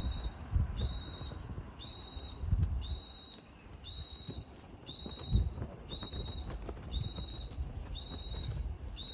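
An electronic alarm beeping: a short high beep about once a second, repeating evenly. Low rumbling bumps come through at a few points.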